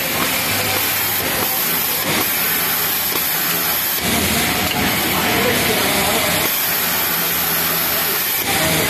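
Pegasus MX industrial overlock sewing machine running in bursts as a t-shirt side seam is sewn, a high hiss starting and stopping several times over a steady din of factory machinery.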